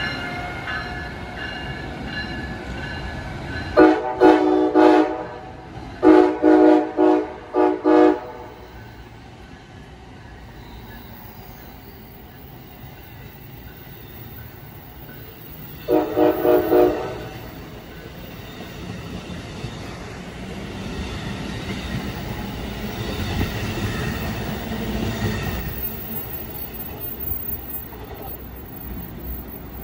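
Train air horn sounding: one long blast and then a quick run of shorter blasts about four seconds in, and a single further blast around sixteen seconds, over the steady running noise of a train. Later a train's rumble swells and fades as it passes.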